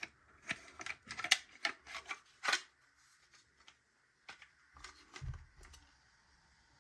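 Hard plastic parts of a Bruder toy road roller clicking and scraping as they are handled and fitted together: a quick run of sharp clicks over the first few seconds, then a few more with a soft thump about five seconds in.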